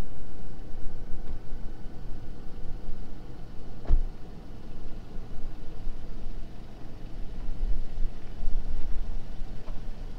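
A road vehicle driving: steady low engine and road rumble, with a single sharp knock about four seconds in.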